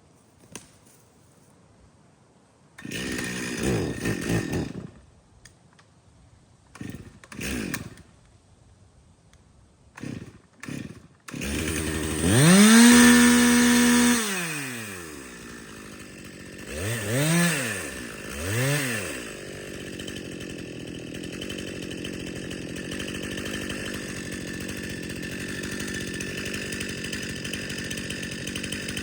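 Two-stroke chainsaw being pull-started. A few short sputters and pulls come first. About twelve seconds in the engine catches and revs high, then is blipped twice, and from about twenty seconds it settles into a steady idle.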